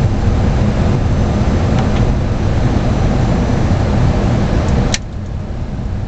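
Steady cockpit noise of a Boeing 737-800 on final approach: airflow and engine noise. A sharp click comes about five seconds in, after which the hiss is quieter.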